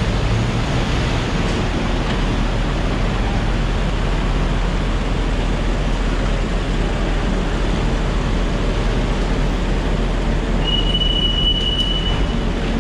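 Steady road and engine rumble of a moving van heard from inside the cabin, with a brief thin high-pitched tone about a second long near the end.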